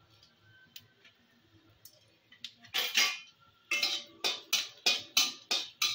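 A metal spatula scraping and knocking against a metal kadai while whole spices are stirred in hot oil. It is faint at first, then from about three seconds in comes a quick run of loud clattering strokes, about three a second.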